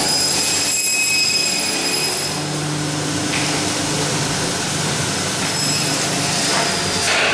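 A machine's steady high-pitched whine, with a low hum joining about two and a half seconds in and fading again, and a short rushing burst near the end.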